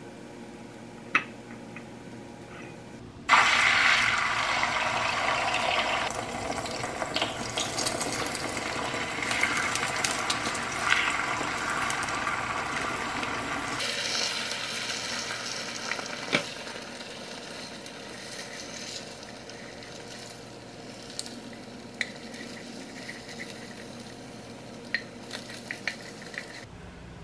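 Beaten eggs hitting a hot nonstick frying pan with a sudden loud sizzle about three seconds in. The sizzle goes on while chopsticks stir and twist the eggs, with small clicks of wood on the pan, and it dies down in the second half.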